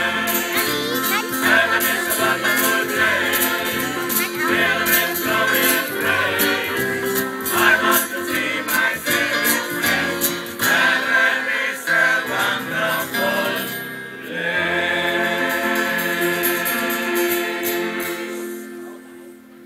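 A mixed gospel choir singing in harmony over an accompaniment with a moving bass line. About fourteen seconds in the singers hold a long final chord that fades away.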